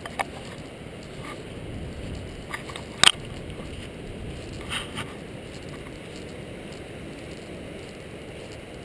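Steady low rushing noise, with a few sharp clicks and scrapes; the loudest click comes about three seconds in.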